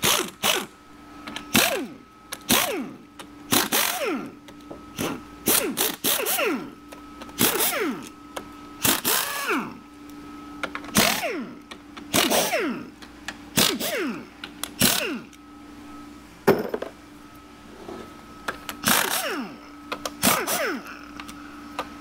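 Power tool run in some twenty short bursts, about one a second with a few pauses, each burst winding down with a falling whine, as bolts are run out during a transmission teardown.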